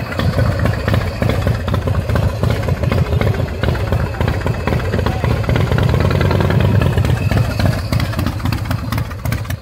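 Big Dog K9 chopper's V-twin engine running with a deep, pulsing low rumble as the bike pulls away.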